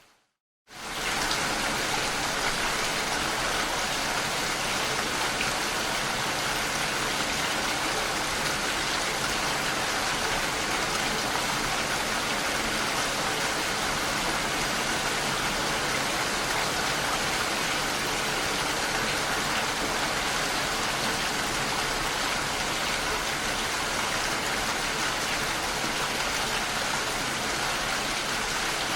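Steady rain falling, an even hiss with no thunder. It cuts out to silence for a moment right at the start and then comes back at full strength within a second.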